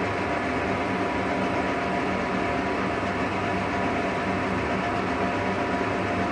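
Milling machine running steadily under power feed as an 8 mm solid carbide end mill cuts a hex pocket in very hard material; an even mechanical drone with a few constant hum tones.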